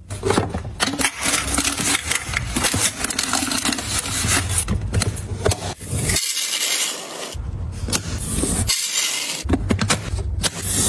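Close-up handling sounds of packaging and containers: scrapes, rubs and small knocks and clacks, in several short clips with sudden cuts between them.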